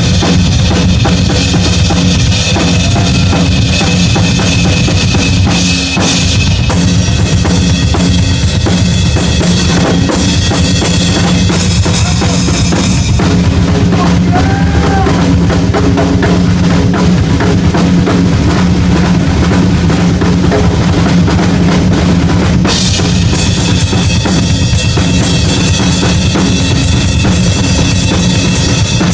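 Heavy-metal drum solo on a live drum kit: fast, dense kick-drum and snare strokes. A cymbal wash runs over them, thins out about halfway through, and crashes back in near the end.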